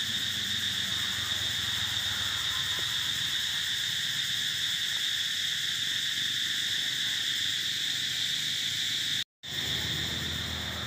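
Steady high-pitched drone of an insect chorus. It cuts out for a moment about nine seconds in and then carries on.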